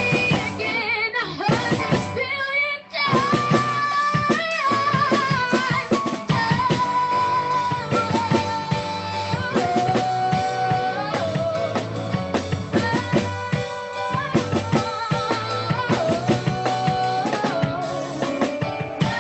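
Contemporary worship song played by a band, with drums and bass under a long-held, wavering melody line.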